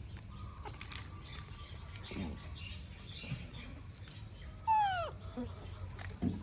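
Baby monkey giving one short high squeal that slides down in pitch, about three-quarters of the way through, amid faint small knocks.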